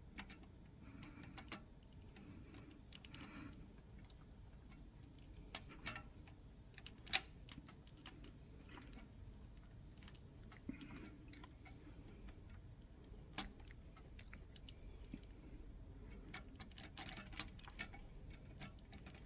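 Faint, irregular small clicks and taps from working the end of a ribbon into a slot on a Smith Premier No. 10 typewriter with a hand tool. One sharper click comes about seven seconds in, and there is a small flurry of clicks near the end.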